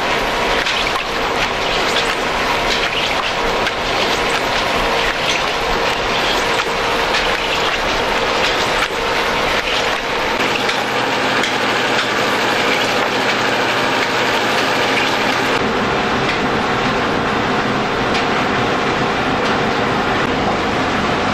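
Old stone flour mill running: the long flat drive belt and the millstone spindle's pulley turning fast, with a steady rattling clatter of many small clicks.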